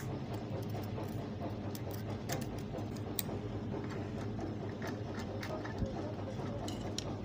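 Irregular small metallic clicks and scrapes of a hand tool working at the parts of an opened overlock machine, clearing out jammed thread and debris, over a steady low hum.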